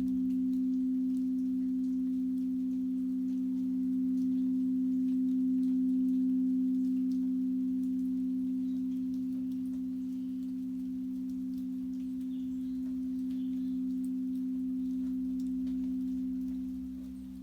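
Quartz crystal singing bowl sounding one sustained, steady low hum, swelling slightly and easing off near the end.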